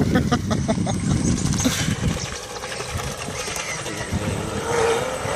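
Proboat Blackjack V3 RC catamaran's electric motor running out on the water, heard as a steady whine that comes in near the end and edges slightly up in pitch, over rumbling wind on the microphone and a quick run of short regular sounds at the start.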